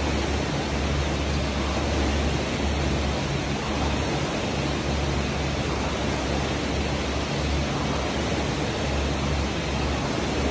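Air-resistance rowing machine's fan flywheel whooshing steadily as it is rowed, with a low rumble that swells with each stroke.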